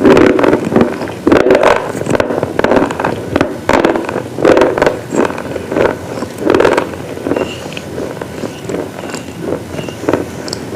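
Close-up crunching of brittle slate-like pieces, bitten and chewed in repeated crisp bursts about once a second, fainter over the last few seconds.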